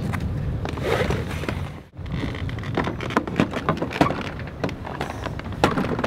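Clicks, knocks and rattles of a webbing strap and its buckle being pulled and undone on a boat's stainless stern rail, many short sharp sounds, mostly after the first two seconds. A low rumble sits under the first two seconds.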